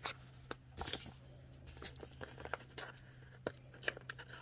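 A shipping package being handled and torn open: scattered short rustles, crinkles and small clicks of the packaging, over a faint steady electrical hum.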